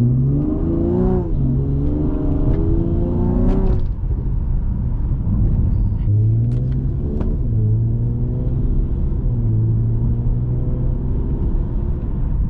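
Car engine pulling under acceleration, its pitch climbing for the first few seconds, dropping sharply about four seconds in as it shifts gear, then climbing again and settling at a steadier pitch, over a constant low road rumble.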